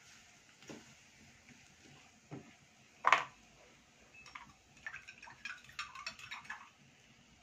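Silicone spatula stirring and pressing thick flour-and-ghee dough in a metal pot: a few knocks against the pot, the loudest about three seconds in, then a run of quick light taps and clicks as the dough is worked.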